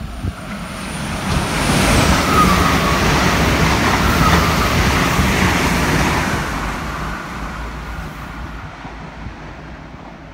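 Irish Rail diesel intercity train passing through the station at speed: a rush of wheels on rail and engine noise that builds over the first couple of seconds, stays loud for a few seconds with a faint squeal, then fades as the train draws away.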